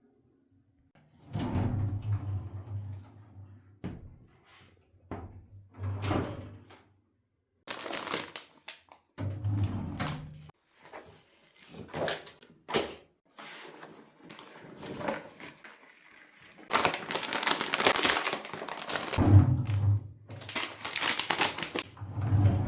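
Household handling noises: objects knocked, set down and moved about in short irregular bursts, with a longer stretch of rubbing or rustling near the end.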